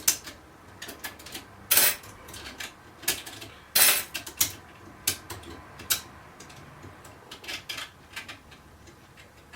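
Small metal parts of a lever mortice sashlock clicking and clinking as the lock is dismantled and its levers are taken out: irregular sharp metallic clicks, the loudest about two and four seconds in.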